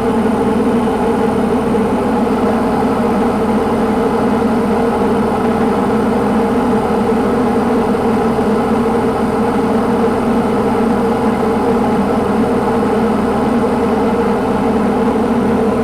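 Diamond DA40 single-engine light aircraft's piston engine and propeller droning steadily, heard inside the cockpit, with no change in pitch.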